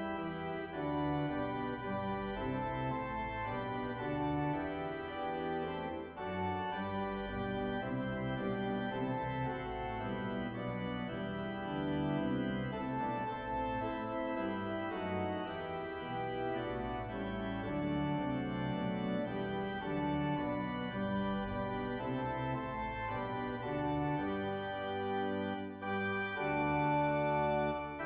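Organ music: slow chords, each held for a second or two before moving to the next.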